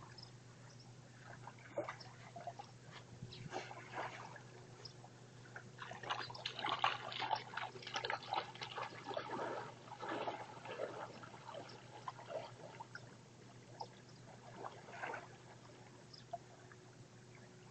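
Shallow seawater splashing and trickling around a person's legs as he wades in, irregular and loudest in the middle, dying down as he moves farther out.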